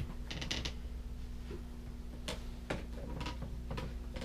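Quiet cabin room tone with a steady low hum, a brief rustle near the start, and a few light knocks and clicks about two and a half seconds in.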